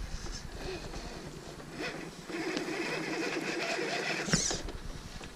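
Axial SCX10 II RC crawler's electric motor and gearbox whining under power for about two seconds, with scattered clicks and clatter of the tires working over the ground and a sharp scrape near the end.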